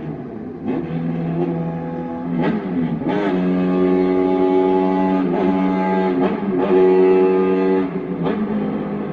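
Honda Jade 250's inline-four engine revved hard through a 4-2-1 exhaust in a call-style rhythm: quick throttle blips between long held high-rev notes, giving a howling, almost musical exhaust note.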